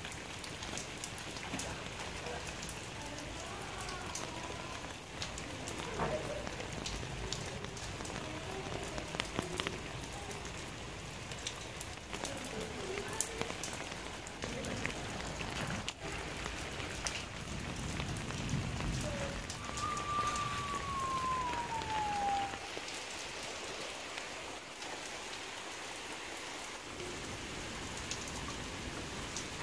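Steady rain falling on wet ground and puddles: a dense, even hiss of drops with fine ticks of individual raindrops. A single thin falling whistle sounds briefly about two-thirds of the way through.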